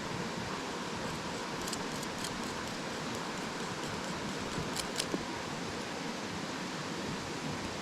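Steady rushing of river water, with a few light clicks about two seconds in and again about five seconds in.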